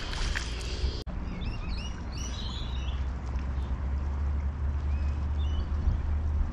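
Small birds chirping in short, repeated calls, twice in quick clusters, over a steady low rumble. For the first second a steady high insect drone is heard, and it cuts off abruptly.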